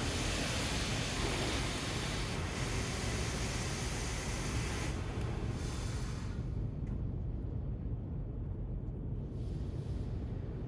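Steady low rumble of road traffic, with a loud hiss over it that stops abruptly about five seconds in and is gone by about six seconds.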